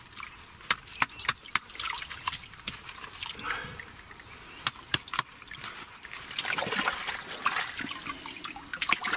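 Muddy water sloshing and trickling as a dug-up German mess-tin lid is rinsed by hand in a puddle, with many scattered sharp clicks. The splashing is heaviest a little over six seconds in.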